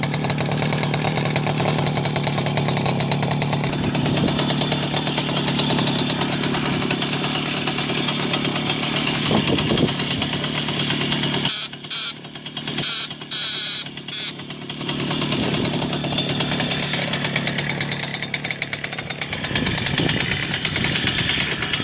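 Romet Ogar moped's small single-cylinder two-stroke engine running steadily. About halfway through, its horn sounds in a few short blasts, then the engine carries on running.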